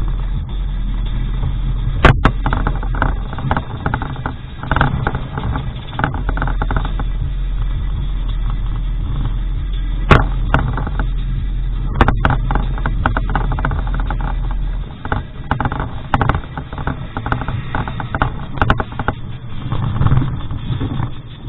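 2001 Ford Expedition's V8 running as the truck drives over rough grass, with steady engine and driving noise. Frequent sharp knocks and rattles come from the truck jolting over bumps, the loudest about 2, 10 and 12 seconds in.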